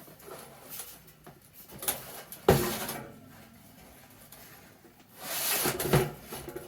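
Handling knocks and scrapes: a sharp knock about two and a half seconds in and another about six seconds in, with rustling and scraping between.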